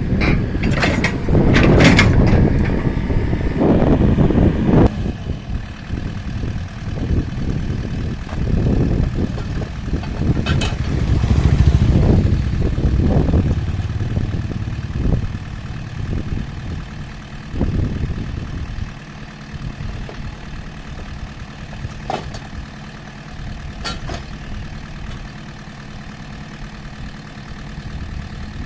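Excavator diesel engine running, heavier and louder through the first half, then settling to a steadier idle. A few sharp metallic clanks come through over it.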